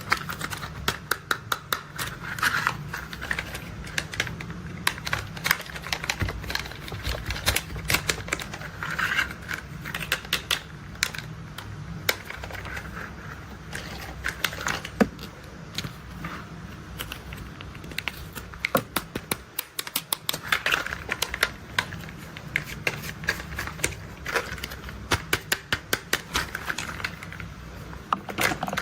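Toy construction vehicles being worked by hand: bursts of rapid clicking and ratcheting from their small plastic mechanisms, coming in clusters over a steady low hum.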